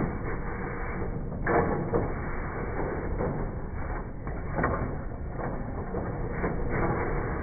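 Konica Minolta bizhub FS-534 finisher running as it feeds sheets out into the output tray: a steady mechanical whirr of rollers and gears with a few sharp clacks, the loudest about a second and a half in. The finisher is damaging the prints it ejects.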